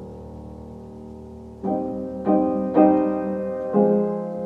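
Solo piano music: a chord fades, then four chords are struck one after another, each dying away.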